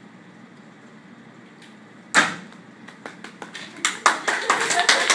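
Quiet room tone, then about two seconds in one loud sharp sound, followed by scattered hand claps that quickly build into applause.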